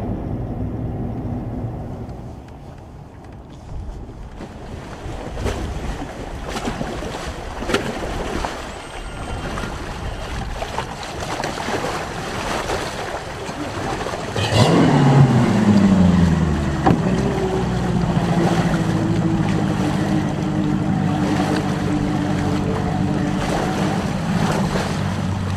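Outboard motor of a bass boat running across choppy water, with wind and splashing spray. About halfway through it gets suddenly louder and its pitch drops steeply as the revs fall. It then runs on at a steady lower speed.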